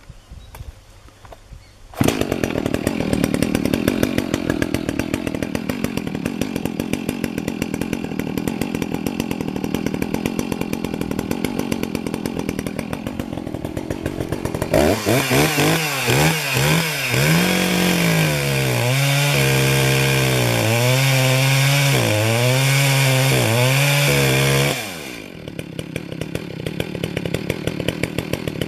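Petrol chainsaw with a freshly sharpened chain starting up about two seconds in and idling. About fifteen seconds in it goes to full throttle to cut through a log, its pitch dipping and recovering under load, and it drops back to idle about ten seconds later.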